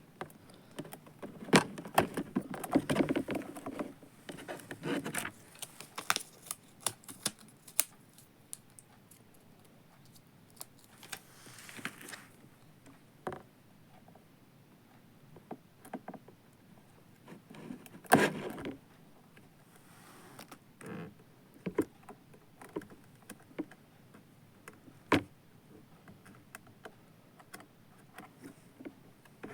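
Intermittent handling noise: scattered clicks, taps and short rustles of objects being handled, with a louder rustling knock about 18 seconds in and a sharp click near the end.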